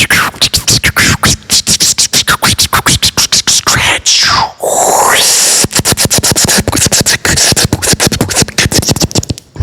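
Beatboxing: a fast run of sharp mouth clicks and hits, broken about four seconds in by a sweeping scratch-like sound that falls and then rises before the rapid hits resume.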